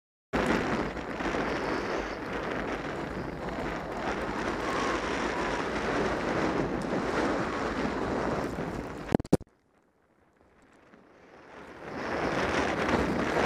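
Wind rushing over an action camera's microphone as a skier descends through powder snow. About nine seconds in there are two sharp clicks, then the rush drops almost to silence and builds back up over about two seconds.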